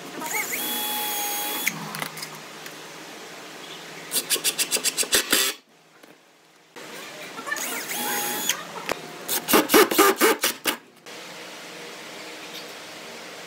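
Power tool working wood in short bursts, starting and stopping several times, with quick runs of rapid strokes about eight a second; a brief near-silent gap falls in the middle.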